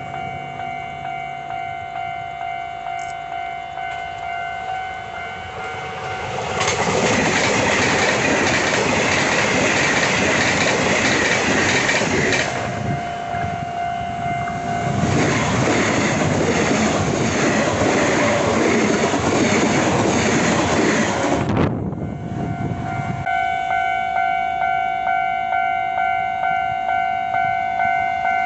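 Level-crossing warning bell ringing in even, repeated pulses. Twice it is drowned out by a train passing close on the electrified line, a loud rushing and rattling of wheels on rails lasting about six seconds each time. The second pass cuts off suddenly, and the bell is heard alone again near the end.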